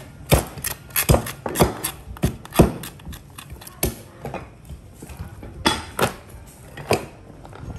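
Heavy cleaver chopping through the ribs and backbone of a raw carcass onto a wooden chopping board: irregular hard chops, about eight, each a sharp knock with a dull thud.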